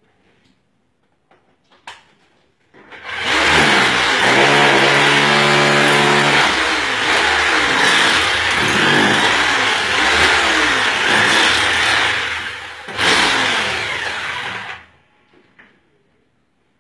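Handheld electric power tool running against a tiled wall. Its motor starts about three seconds in, first at a steady pitch, then wavering as it bites into the wall. It drops out briefly near 13 seconds, picks up again, and stops about fifteen seconds in.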